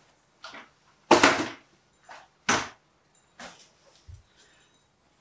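Wooden stepladder being moved and set down: a series of short knocks and bumps, the loudest about a second in.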